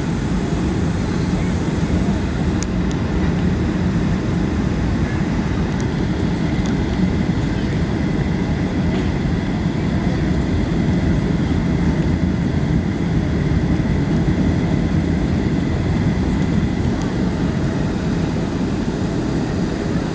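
Steady cabin noise inside a jet airliner: a low rumble of engines and airflow, with a faint steady whine above it.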